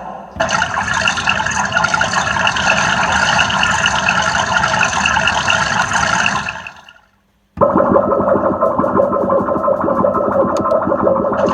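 Two loud, distorted sound effects in a row. The first is harsh and hissy and cuts off about seven seconds in. After a brief silence a second, duller one starts abruptly.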